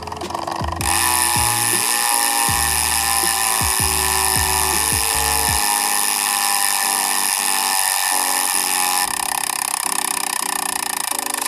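Sagmit M120 rear hub's freehub (six pawls, 120 engagement points) buzzing as the wheel freewheels: a very fine, dense ratchet buzz that starts about a second in. Its pitch slowly falls, and the texture changes about nine seconds in.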